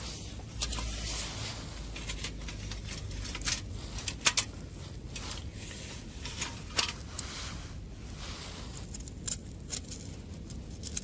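Small wood fire crackling, with irregular sharp pops, loudest about four and seven seconds in, over a soft hiss and a low rumble.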